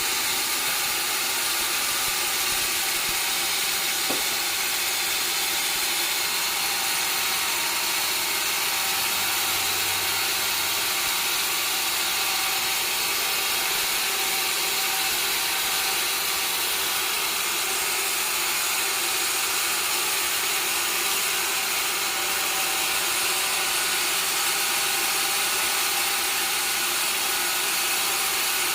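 Sawmill saw running steadily through wood, an even, unbroken noise with no pauses.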